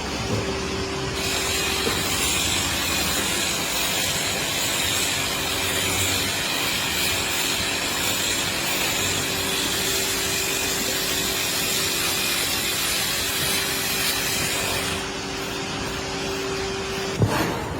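Milking parlour machinery running with a steady hum, and a hiss like spraying water or air that starts about a second in and stops near the end, followed by a single knock.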